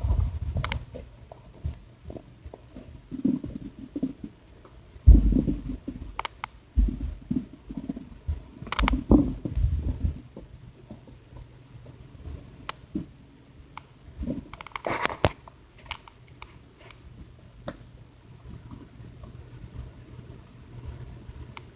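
A puppy at play: irregular scuffling, low rumbles and thumps, busiest in the first half, with a brief higher-pitched sound about two-thirds of the way through.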